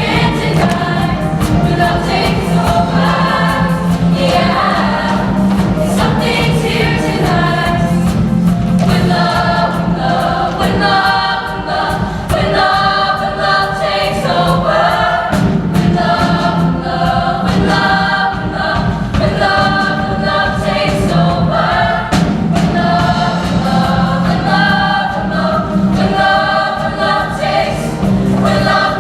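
Show choir singing in full ensemble over an instrumental accompaniment with a steady bass line.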